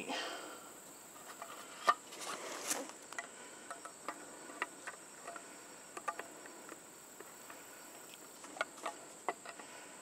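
Scattered light clicks and knocks of a plastic weatherproof outlet cover being handled and its hinged lid opened, the sharpest about two seconds in. A steady high-pitched insect drone runs underneath.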